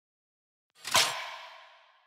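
A cinematic sound-design hit: a brief whoosh swells into a sharp impact about a second in, then a long ringing tail fades away over about a second.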